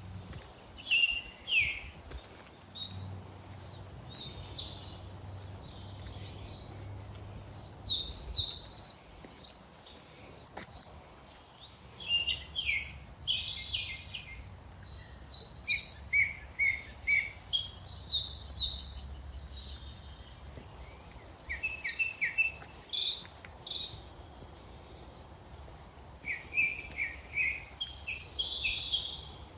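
Several songbirds singing, one short high phrase after another with brief pauses, some phrases a quick run of falling notes.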